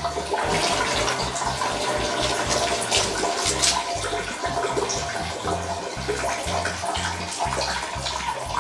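Steady stream of liquid splashing into the water of a toilet bowl: the sound of someone urinating.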